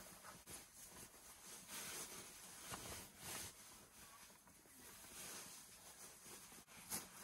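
Near silence with faint, irregular rustling of a puffy winter jacket and clothing as someone adjusts and dresses.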